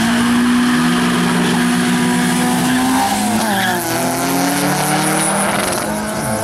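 Race car engines running hard at high revs over a continuous hiss. About three and a half seconds in, the pitch drops briefly and then climbs steadily again, like a gear change during a drag run.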